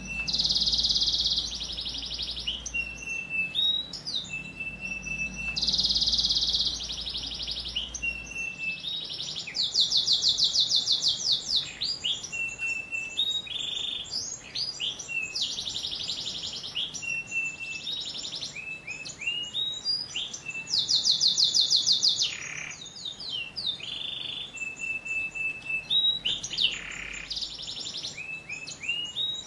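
Domestic canary singing a continuous song of one phrase after another: rapid rattling trills, quick sweeping notes and short level whistles. The loudest fast trills come about ten seconds in and again about twenty-one seconds in.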